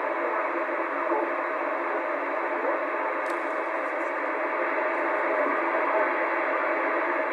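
RadioShack DX-394 shortwave receiver playing through its speaker: steady band-limited static hiss with a faint signal buried in it.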